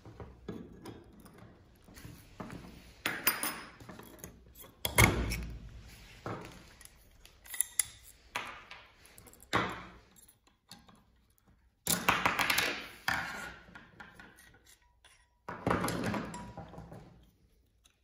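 Metal parts of a hand blind-rivet tool clicking, clinking and knocking against each other and on a tabletop as the tool is taken apart, in irregular bursts, the loudest knock about five seconds in.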